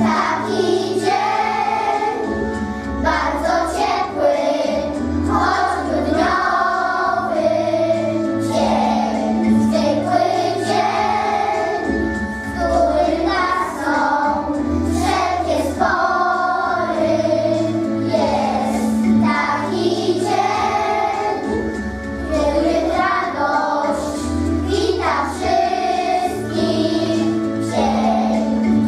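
Children's choir singing a Polish Christmas carol (kolęda) with instrumental accompaniment, a low bass line changing chord about every two seconds under the voices.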